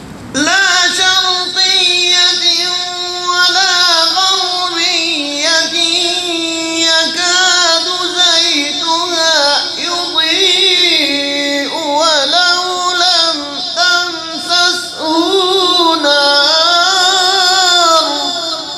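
Quranic recitation (tilawat) by a male qari: a long, high, ornamented vocal line with the pitch bending and turning, held with only brief breaks. It starts suddenly at the very beginning and drops away near the end.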